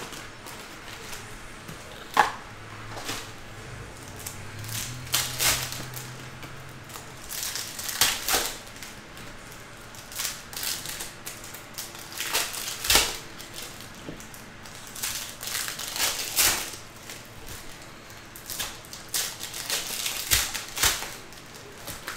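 Foil trading-card pack wrappers crinkling and tearing open, with cards being slid and handled: irregular sharp crinkles and rustles.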